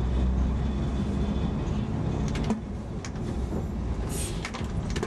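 Lisbon Remodelado tram running on street track, heard from inside the car: a steady low rumble that drops about halfway through as the car eases off, with a few sharp clicks. A short hiss with more clicks comes near the end as it closes up behind the tram ahead.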